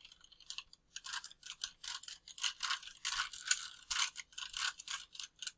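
3×3 Rubik's cube being twisted: quick, irregular plastic clicks and clacks as its layers are turned, several a second.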